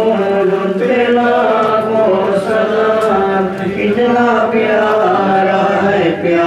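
A man chanting an Urdu devotional salaam (naat) in praise of the Prophet Muhammad into a handheld microphone, with long, drawn-out melodic notes.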